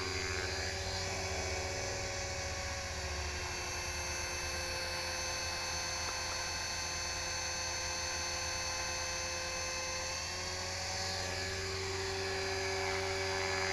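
HK-450GT electric RC helicopter in flight: the steady high whine of its electric motor and gears over the rotor blades' whirr. The pitch wavers briefly about ten seconds in.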